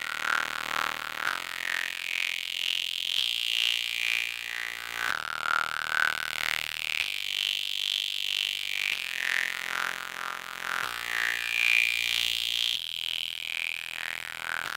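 Background music: a filtered, sample-based hip-hop beat, thin in the bass, whose chords change about every two seconds.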